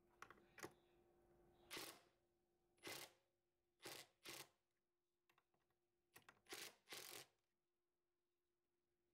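Ridgid Gen5X brushless impact driver hammering a 1/2-inch lag bolt in a string of about nine short trigger bursts, seating the bolt head.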